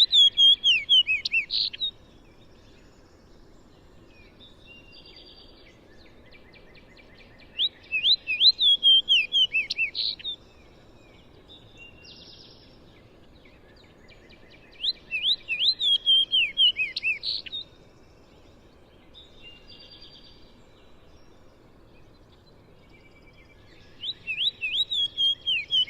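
Fox sparrow singing its rich, musical song of slurred whistles, repeated about every seven or eight seconds, four songs in all, with fainter bird notes between the songs.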